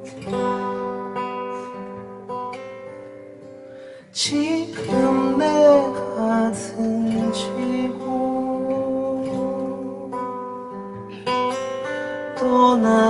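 Live acoustic guitar song: a man singing over a strummed and picked acoustic guitar. The guitar plays softly for the first few seconds, then the voice comes in strongly about four seconds in, and the strumming picks up again near the end.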